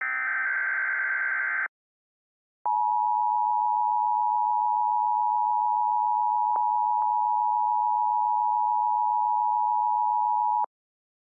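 An Emergency Alert System SAME header burst, a fast digital warble, ends under two seconds in. After a short gap the EAS attention signal follows: a steady two-tone beep at 853 and 960 Hz that sounds for about eight seconds, with two faint clicks midway, and stops abruptly.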